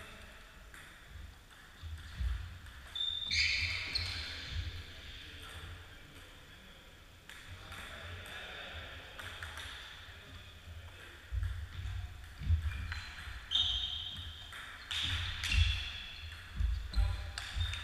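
Table tennis rally: the celluloid ball clicks off paddles and the table in quick, uneven strings, echoing in a large wood-floored gym hall. Low thumps and a couple of short high squeaks come from the players' feet on the floor. The busiest stretch of play comes in the second half.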